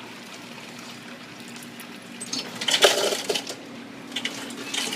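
Fountain drink cup being handled at a soda fountain: a steady machine hum, then from about two seconds in a quick run of plastic clattering and clicks, with a few more clicks near the end.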